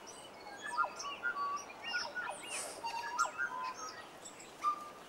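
Several birds chirping and whistling outdoors, with many short, overlapping calls of differing pitch.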